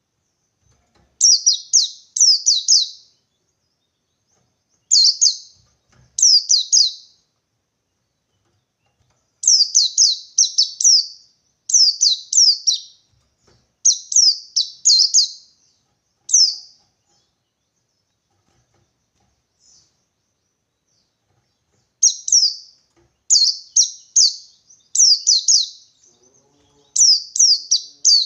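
White-eye (pleci) singing in the wild 'ngalas' style: short phrases of two to four quick, high, falling notes, repeated with brief pauses. About seventeen seconds in the song stops for some five seconds, then resumes.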